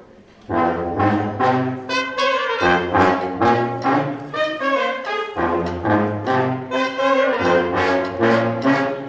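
A brass band starts playing about half a second in: several horns together over a low bass line, in a steady rhythm.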